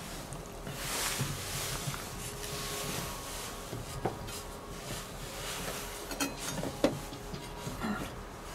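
Handling noises while eating: soft rustling, then a few sharp light clicks and taps, as of cutlery on a board or plate.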